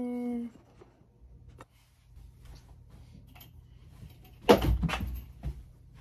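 Phone being handled and repositioned: scattered light clicks, then a loud cluster of knocks and rustling about four and a half seconds in.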